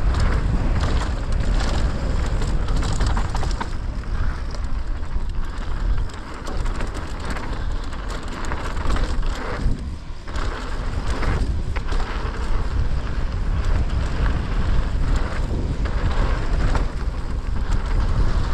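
Mountain bike riding fast down a dirt trail: a steady rush of wind over the microphone with a deep rumble, and frequent knocks and rattles from the bike and tyres over bumps.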